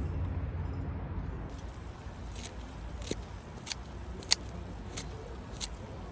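Kitchen scissors snipping through food, a sharp click about every half-second, over a low steady hum.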